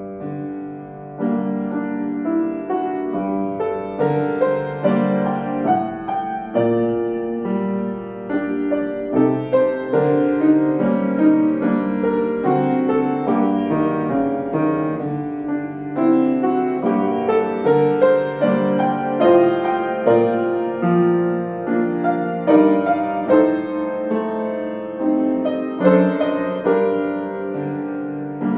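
Solo acoustic grand piano being played: a continuous flow of struck notes and chords that ring on as they fade, getting louder about a second in.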